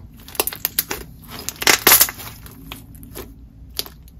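Hands squishing and pressing a fully mixed, slightly stiff slime of whipped cloud slime and clear slime with Bingsu beads, giving irregular sticky pops and clicks, loudest about two seconds in.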